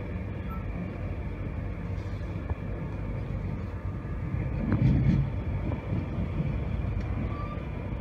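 Steady low rumble of a Class 91-hauled passenger coach running along the rails, heard from inside the coach, swelling louder for a moment about five seconds in.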